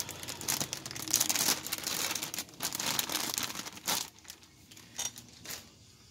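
Clear plastic packaging bag crinkling as it is handled and unwrapped. The crinkling is dense at first and thins to a few separate crackles after about four seconds.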